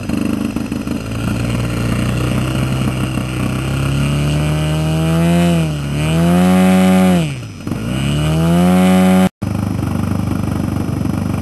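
Engine of a large radio-controlled model aircraft running and being revved: the pitch climbs steadily, goes high, drops back sharply once and climbs high again in a ground run-up while the plane is held. The sound cuts off suddenly near the end, then a steady engine noise without a clear pitch continues.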